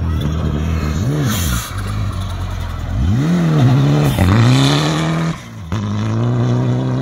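Ford Fiesta rally car's engine revving hard on a dirt stage as it slides past, pitch climbing and falling several times with throttle and gear changes. The sound drops away briefly about five seconds in, then comes back steady.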